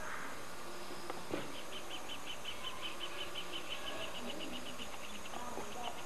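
An insect chirping in a rapid, even series of short high pulses, about eight a second, starting about a second and a half in and fading out near the end. A single soft knock comes just before it starts.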